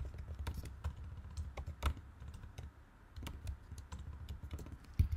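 Typing on a computer keyboard: irregular clicking keystrokes, with a quick run of louder ones near the end.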